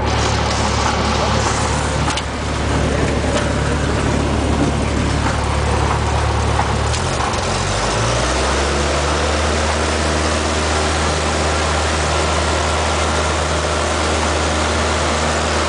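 Cabin noise of a Cessna 172N climbing out after a touch-and-go: the four-cylinder Lycoming O-320 engine and propeller drone steadily under power over a rush of air, the engine note shifting briefly about halfway through.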